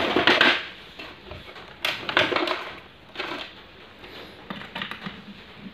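Handling noise: rustling and clattering as electrical cords and wires are pulled about on a cluttered workbench, in a few short bursts near the start, about two seconds in and about three seconds in, then softer small clicks.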